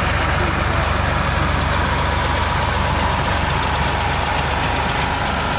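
Old farm tractor's engine running at low revs as it drives past close by: a steady, low rumble.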